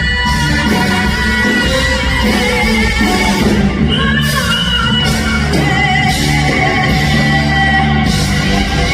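A singer belting long, held high notes over a rock band backing.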